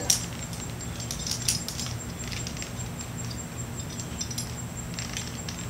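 Scattered clicks and light rattles of metal SRT climbing hardware (ascenders and carabiners) being handled on a loaded rope during a changeover. The sharpest click comes right at the start, with more clusters about a second and a half in and again near the end.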